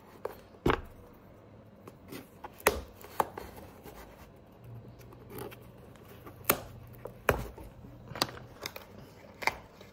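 Irregular sharp snaps and ticks, a second or more apart, as the chain-stitched welt and dry, brittle leather of an old Gringo boot are pulled and torn away by hand.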